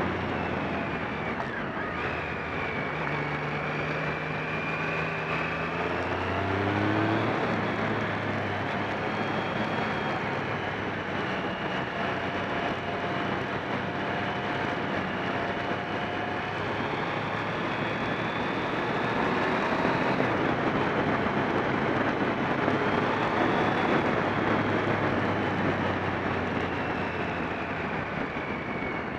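Motorcycle riding at road speed, heard from on the bike: the engine running under heavy wind rush, its pitch stepping and gliding up and down a few times through the bends.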